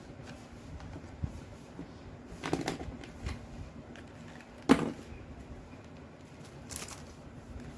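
A few scattered knocks and rustles of stationery being handled on a table, the sharpest knock just under five seconds in.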